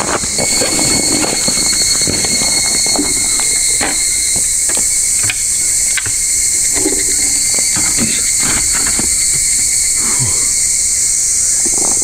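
Higurashi (evening cicadas) and other insects singing in a steady high chorus. Scattered short wooden clacks come from a small folding wooden table being opened out and set down.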